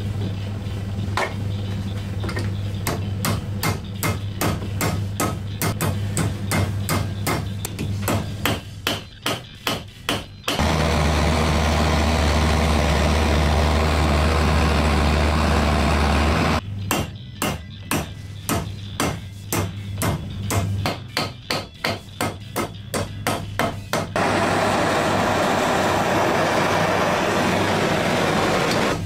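A hammer striking steel in quick, steady blows, about three a second, bending thick scrap steel. The blows stop twice, and a steady rushing noise fills the gaps.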